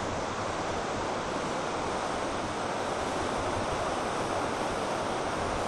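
A fast, silt-laden mountain river rushing over rapids: a steady, even sound of whitewater.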